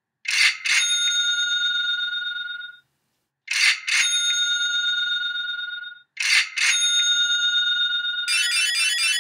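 A small bell struck twice in quick succession and left ringing for about two seconds, three times over. Near the end it breaks into a fast, continuous trilling ring.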